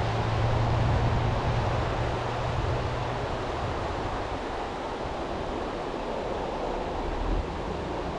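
Rocky mountain stream rushing over a riffle: a steady wash of running water, a little louder in the first few seconds.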